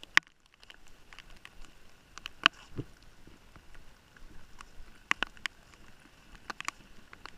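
Raindrops tapping irregularly on the recording phone: scattered sharp ticks, a few louder ones near the middle and about five seconds in, over faint background hiss.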